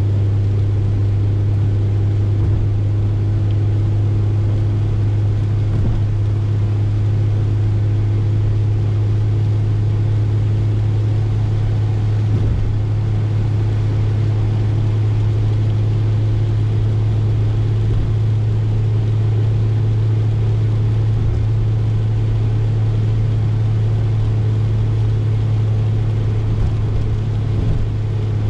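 Peugeot 205 XS's 1.4-litre four-cylinder carburetted engine (TU3S) running at a steady cruise, heard from inside the cabin as a constant low drone, with a steady hiss of tyres on the wet road.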